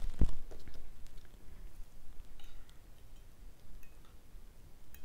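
Two dull knocks right at the start, then sparse light clinks and ticks of a metal spoon and fork against a ceramic plate as noodle soup is stirred.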